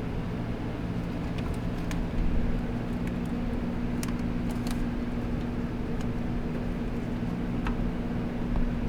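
A steady low mechanical hum, with a few short, sharp clicks and clinks of parts or tools being handled scattered through it.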